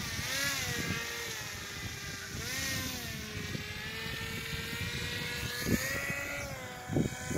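Small propeller motor of a radio-controlled paramotor running, its pitch wavering up and down as the throttle changes while the wing flies. Two short thumps near the end.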